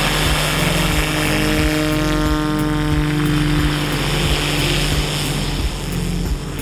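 Light single-engine propeller airplane's engine running steadily at high power.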